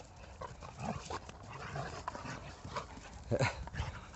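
Two pit bulls play-fighting: short dog vocalizations and scuffling in dry grass, with the loudest sound coming about three and a half seconds in.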